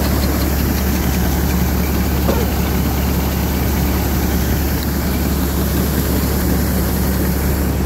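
Massey Ferguson 86 combine harvester running steadily while its unloading auger empties barley from the grain tank into a trailer.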